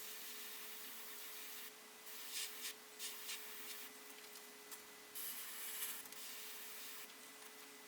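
Airbrush spraying paint in short bursts of hiss that start and stop as the trigger is worked, each lasting up to a couple of seconds, over a faint steady hum.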